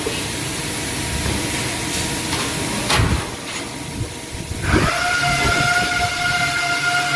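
Sheet-metal workshop machinery: a steady hissing hum with one sharp knock about three seconds in. Near the end a machine whine of several tones starts, rising briefly and then holding steady.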